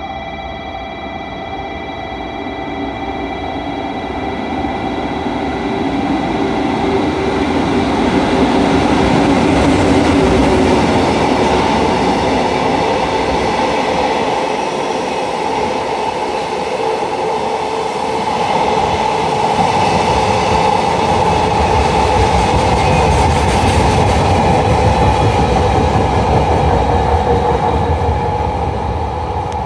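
JR Freight EF81 electric locomotive (EF81-454) passing at speed. It grows louder as it approaches and is loudest about ten seconds in, then a long string of Koki 100 series container wagons rolls past with a steady rumble and wheel clatter on the rails.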